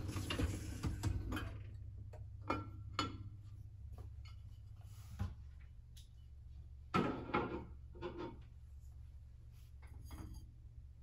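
Dishwasher being unloaded: the upper wire rack slides on its runners near the start, then ceramic bowls knock and clink against the wire rack in a handful of short, separate clatters as they are lifted out.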